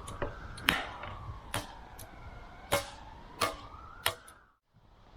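Distant ambulance siren wailing faintly, rising and falling slowly. Several sharp clicks sound over it, about one a second. The sound drops out abruptly near the end.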